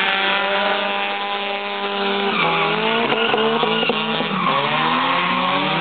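Car engine held at high revs during a drift, with tyres squealing; about two seconds in the revs drop, then rise and fall again and again.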